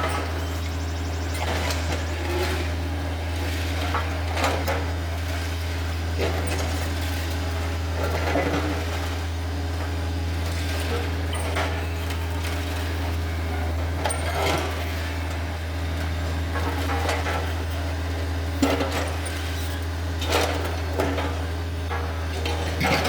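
Takeuchi TB153 compact excavator's diesel engine running steadily, with irregular clanks and knocks as its steel bucket works against concrete.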